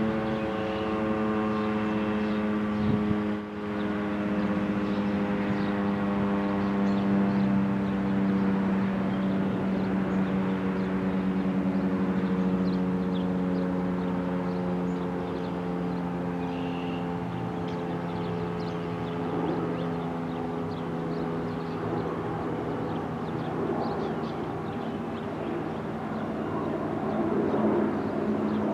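Federal Signal STH-10 dual-tone rotating electromechanical tornado siren winding down after its alert signal, its chord slowly falling in pitch and fading out over about twenty seconds.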